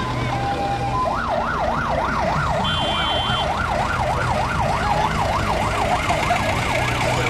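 A siren sounding in a fast yelp, its pitch rising and falling about three times a second, starting about a second in. Beneath it runs a steady low engine hum from the slow-moving parade tractors.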